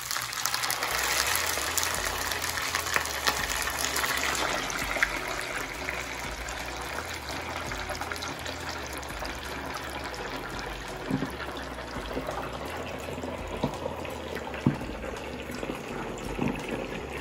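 Whole fish sizzling and bubbling hard in a wok of hot oil just after being lowered in head first, loudest in the first few seconds and slowly settling. A few light knocks sound in the last third.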